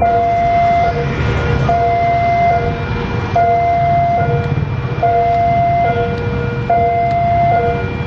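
Railway level-crossing warning alarm sounding an electronic two-tone hi-lo signal, a higher tone and a lower one alternating, about one cycle every 1.7 s, over a low rumble. It signals that a train is approaching or passing the crossing.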